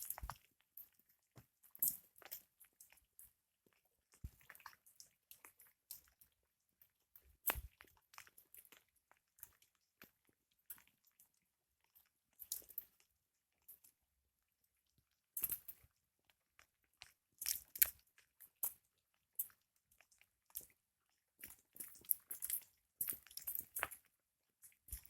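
Campfire of apple wood crackling, with irregular sharp pops and snaps that come in clusters between quieter stretches.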